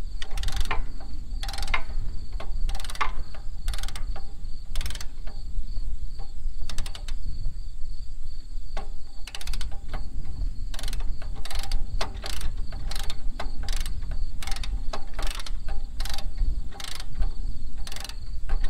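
Hand ratchet wrench clicking in repeated runs of short strokes as fasteners on a tractor transmission are loosened for draining. Steady insect trilling and low wind rumble on the microphone lie underneath.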